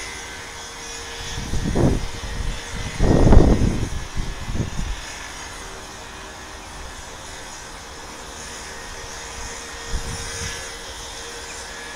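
Wind buffeting the microphone in a few rumbling gusts, the strongest about three seconds in, then a quieter steady background.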